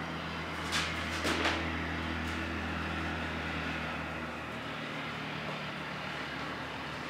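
Marker pen strokes on a whiteboard, a few short scratchy strokes about a second in and fainter ones after, over a steady low hum whose deepest part drops away about five seconds in.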